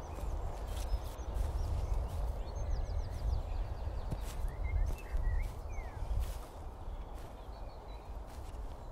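Outdoor garden ambience: small birds chirping now and then over an uneven low rumble of wind, with soft footsteps and rustling in the grass.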